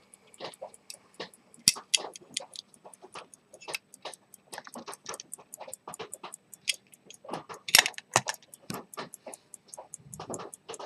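Zenith pocket watch movement ticking fast and evenly, about five ticks a second, heard close up. Louder, irregular clicks and knocks from fingers handling the open metal case come over it, the strongest about two seconds in and again near eight seconds.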